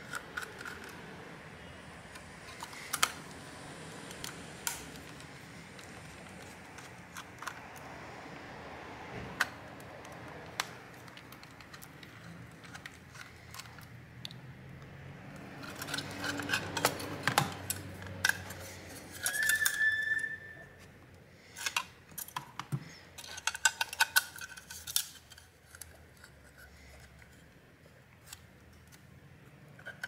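Small metallic clicks, taps and scrapes as a 2.5-inch SSD in its metal drive bracket is handled and fitted into a laptop's drive bay with a small screwdriver. Scattered single clicks at first, then a denser clatter with brief metallic rings in the middle of the stretch.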